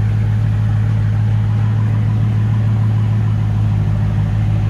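2020 Dodge Challenger Scat Pack's 6.4-litre 392 Hemi V8 idling steadily after a cold start, warming up and starting to quiet down.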